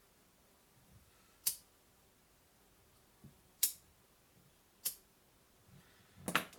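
Sharp single clicks at about a second and a half, three and a half and five seconds in, then a short clatter of small knocks near the end, over quiet room tone.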